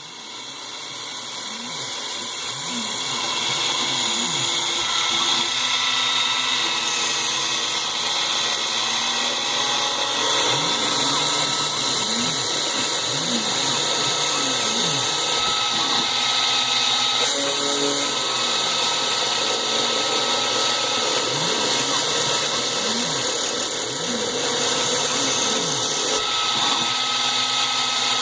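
CNC milling machine cutting a row of perforations: the spindle and cutter run steadily with a high whine, while the axis motors sweep up and down in pitch again and again as the machine moves from hole to hole. The sound rises over the first few seconds.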